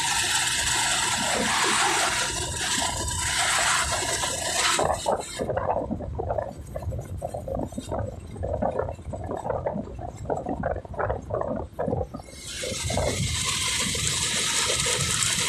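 Wind rushing over a phone microphone on a moving motorcycle tricycle, with road and engine rumble beneath. About five seconds in the hiss drops away, leaving a muffled rumble with many short knocks, and the rush returns about twelve seconds in.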